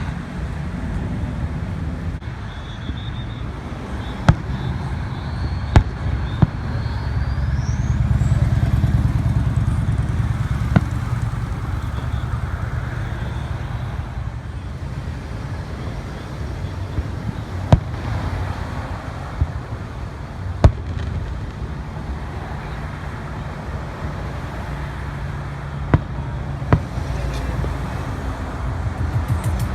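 Fireworks going off: single sharp bangs every few seconds over a steady low rumble, with a rising whistle about seven seconds in.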